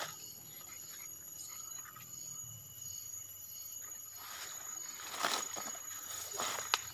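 Rustling and footsteps through forest undergrowth, heaviest around four to five seconds in, with a sharp click near the end, over a faint steady high-pitched whine.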